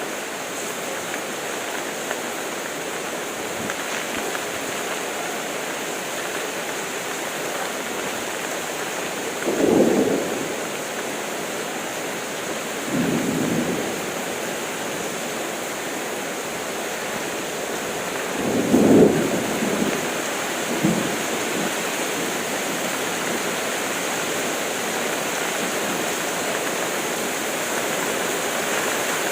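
Heavy rain falling steadily, with four short rumbles of thunder rising over it; the loudest comes about two-thirds of the way through.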